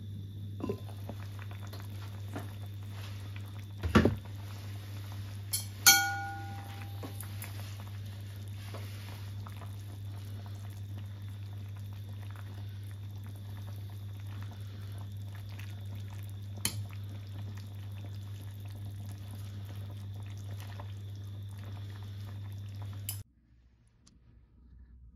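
A clay pot's lid lifted off and set down, with a knock about four seconds in and a ringing clink about two seconds later, then a ladle moving through the soup. A steady low hum runs underneath and stops near the end.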